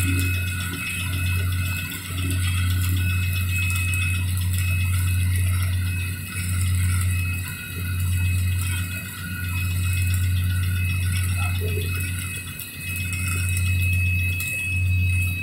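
Shielded metal arc (stick) welding: the electrode's arc crackles continuously over a strong low buzz, with the level dipping briefly every second or two.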